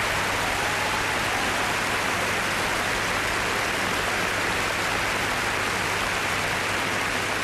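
Large live audience applauding, a dense, even clatter of many hands that holds steady without a break.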